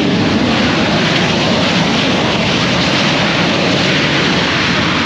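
Jet airliner's engines running loud and steady as it rolls down the runway just after landing.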